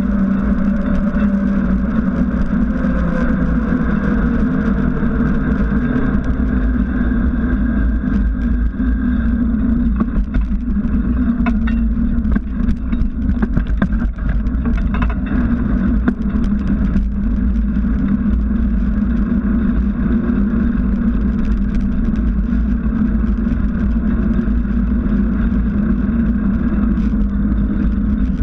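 Steady rolling hum of a knobby mountain-bike tyre on asphalt, with wind noise on the bike-mounted camera's microphone and scattered short clicks and rattles in the middle.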